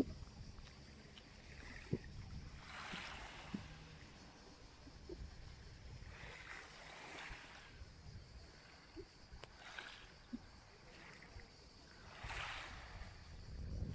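Small waves lapping softly on a pebble shore, a gentle wash every few seconds, with a low wind rumble on the microphone.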